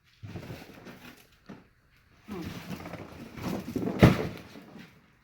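Cardboard boxes being handled and rummaged while a stuck piece of metal is tugged at, with one sharp knock about four seconds in.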